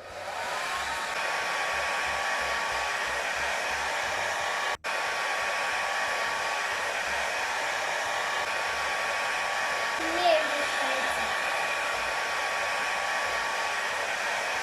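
Electric air blower running steadily, blowing air to spin the blades of a small Lego wind-turbine model: an even rushing of air with a faint steady whine. It cuts out for a split second about five seconds in.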